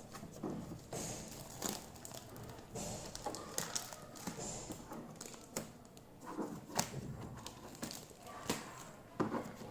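Plastic wrapping and packing material crinkling and rustling as a new inkjet printer is unwrapped by hand, with irregular clicks and light knocks of handling.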